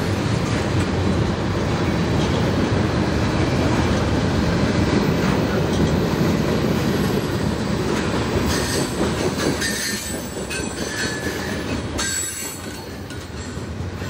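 Freight cars rolling past on the rails: a steady heavy rumble of wheels, with scattered high squeals and metallic clanks from about eight to thirteen seconds in.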